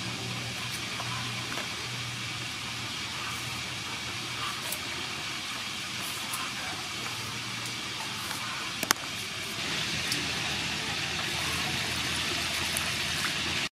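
Cucumbers being scraped with a vegetable peeler over a steady background hum, then a single sharp click about nine seconds in. Just after the click, water starts pouring into a metal bowl of mint leaves and cucumbers with a steady splashing hiss.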